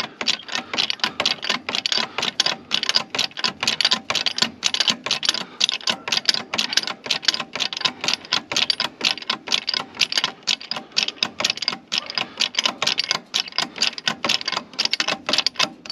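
Red hydraulic bottle jack being pumped with quick, short handle strokes, giving a rapid, even run of sharp clicks as it lifts a tractor's frame.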